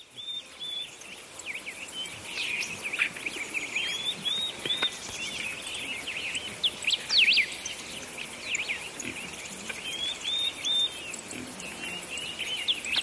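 Many small birds chirping and twittering together, a dense chorus of short calls sliding up and down, with a faint, fast, high pulsing of insects behind.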